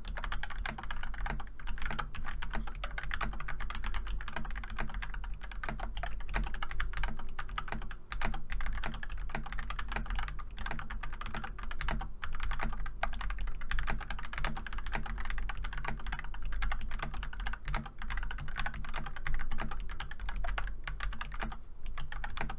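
Fast continuous typing on an AJAZZ K870T mechanical keyboard with stock Momoka Frog linear switches, foam and holee-modded stabilizers, and GMK Dots keycaps: a steady stream of key clacks with heavier spacebar strikes.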